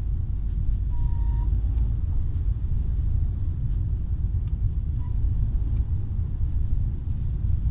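Car running with a steady low rumble, and a brief high squeak about a second in that lasts about half a second, with a fainter short squeak near the five-second mark: the short-lived squeak that has appeared when the accelerator pedal is pressed.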